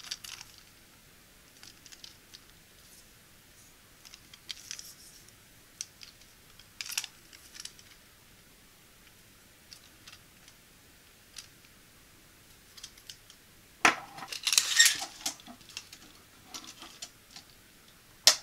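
Hard black plastic hanger parts clicking and tapping as they are handled, in scattered single clicks, with a louder, denser bout of rattling clicks about fourteen seconds in.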